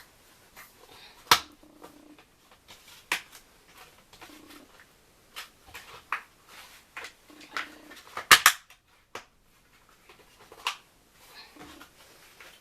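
Shelf parts being fitted together by hand: a string of sharp clicks and knocks as the last side panel is pressed into place, loudest a quick double knock about eight seconds in.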